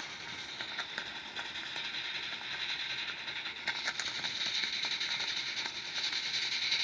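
Live steam garden-railway locomotive (Roundhouse 'George') running on blocks, its exhaust steam chuffing from the chimney in a fast, even stream of beats that grows louder about four seconds in.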